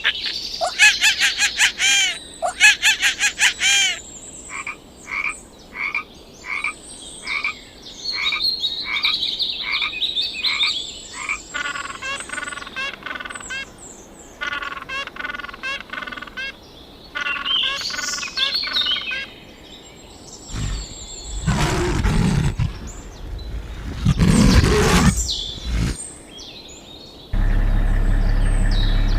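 Frogs calling: a series of separate croaks and rapid pulsed trills, followed by two louder, deeper croaks about two-thirds of the way through. Near the end a steady low hum starts and is as loud as anything before it.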